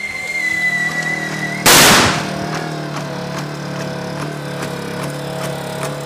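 A single loud bang about one and a half seconds in, fading quickly, over a steady droning hum.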